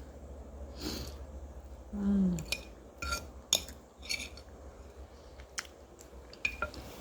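Cutlery clinking and tapping against a plate while eating, about half a dozen sharp clicks, with a brief hummed 'mm' about two seconds in.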